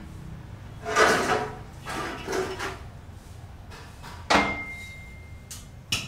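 Knocks and clanks of a steel wall frame being handled. About four seconds in comes one sharp metal strike that leaves a high ringing tone for over a second.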